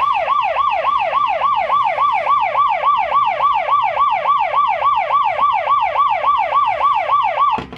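Federal Signal SelecTone electronic siren sounding its yelp tone through a horn speaker, on the low volume setting. A fast up-and-down pitch sweep repeats about four times a second, then cuts off shortly before the end.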